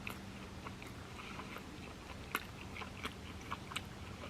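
Close-up chewing of sushi: soft, wet mouth clicks scattered irregularly, one louder click about two seconds in.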